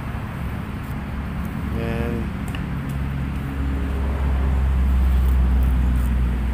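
Road traffic: a motor vehicle's low engine hum that grows louder over the last few seconds as it draws close.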